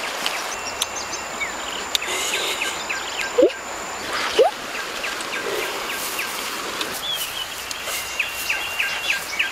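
Outdoor ambience of birds chirping and an insect's thin high steady drone over a steady background hiss, with two short rising calls about a second apart near the middle.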